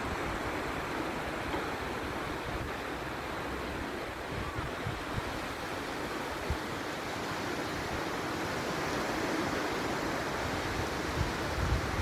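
Steady wash of small sea waves lapping against a rocky shore. A few low bumps of wind buffeting the microphone near the end.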